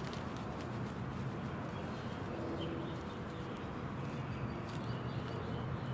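Juniper bark tinder rustling softly as it is rolled, twisted and torn between the hands, over a steady low hum.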